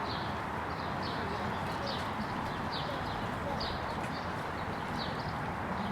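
A small bird chirping over and over, short high chirps about every half second to a second, over a steady background hiss.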